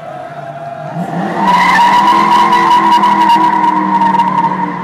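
Car tyres squealing in one long, steady screech that starts about a second in, with the car's engine note running underneath: the tyres are spinning hard on the road.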